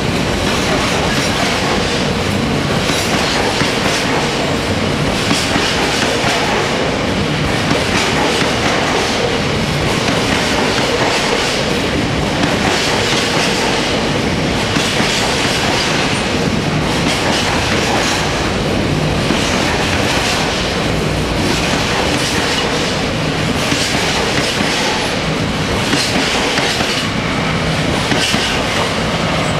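Coal hopper wagons of a freight train rolling past at speed: a steady loud rumble and clickety-clack of wheels on the rails, swelling at regular intervals as each wagon goes by.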